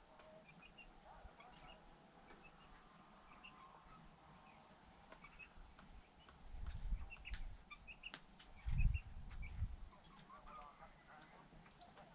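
Chickens calling faintly, with many short high peeps like chicks and some lower hen calls, and a few low rumbles about halfway through.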